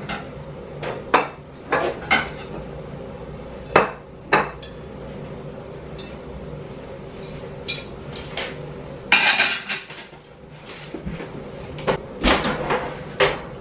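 Plates, pots and cutlery clinking and knocking as food is served out onto plates: scattered sharp knocks, with a busier run of clatter about nine seconds in and again near the end.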